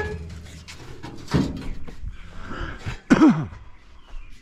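Knocks and thuds of objects being handled and set down, with a short, loud pitched sound that slides down in pitch about three seconds in.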